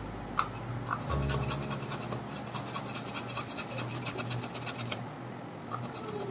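A peeled carrot grated by hand on a small metal grater with a plastic frame: quick, regular scraping strokes that stop about five seconds in.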